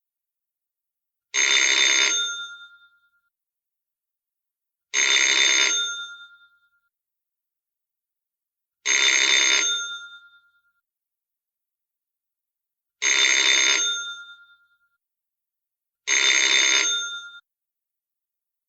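Telephone bell sound effect ringing five times, each ring about a second long and fading away, with a pause of about three to four seconds between rings.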